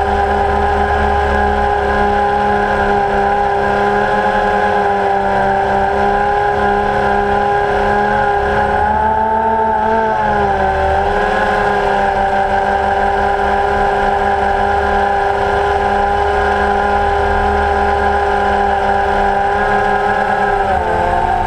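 Multirotor drone's motors and propellers humming steadily, with the pitch dipping and recovering briefly about halfway through and again near the end.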